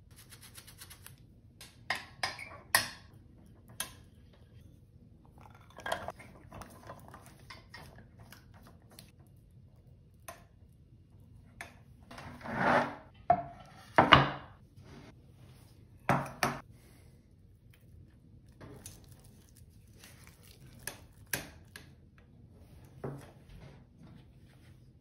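Stainless steel saucepan and utensils: scattered sharp knocks, clinks and scraping as a silicone spatula stirs in the pan and the pan is handled. Near the start, a quick run of light taps as matcha is sifted through a small mesh sieve over the pan.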